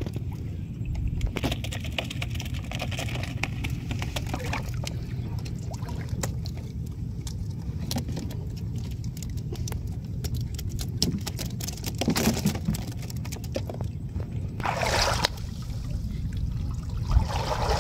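Steady wind rumble on the microphone with scattered light clicks and rattles, then water splashing and trickling near the end as hands work in shallow water.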